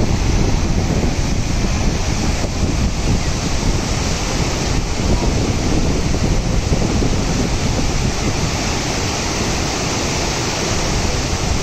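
Whitewater rapids of a fast mountain river rushing over boulders: a loud, steady rush of churning water.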